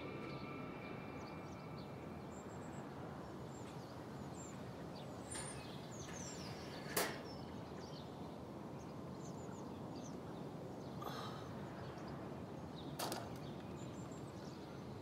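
Quiet outdoor ambience with faint small bird chirps scattered through, and a few sharp clicks, the loudest about halfway, from the metal wire birdcage being handled.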